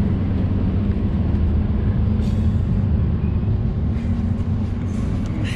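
Passenger train running, a steady low rumble heard from inside the carriage.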